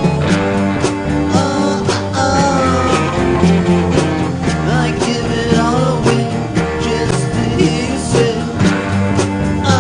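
A rock song with electric guitar, a steady beat and a singing voice.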